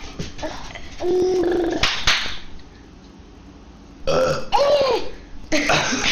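A person belching: one long, loud burp of steady pitch about a second in. Another short vocal sound follows around four seconds in.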